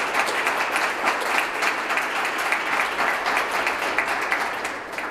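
Audience applauding, dense steady clapping that tails off near the end.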